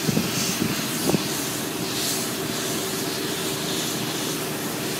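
Large building fire burning: a steady rushing noise, with a few sharp pops in the first second or so.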